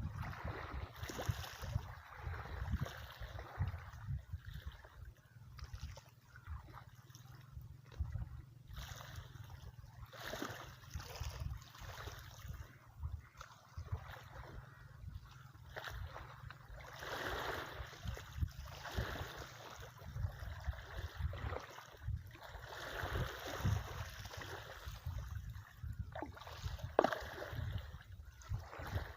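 Outdoor ambience by open water: an uneven low rumble of wind buffeting the microphone, with irregular swells of rushing, water-like noise.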